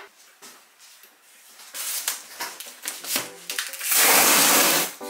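Cardboard box handled with rustling and scraping, then packing tape torn off the box in one loud rip lasting about a second near the end.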